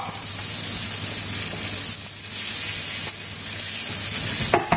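A deboned chicken leg and sliced onions sizzling in oil in a nonstick frying pan over high heat, stirred with a wooden spatula. A couple of sharp knocks come near the end.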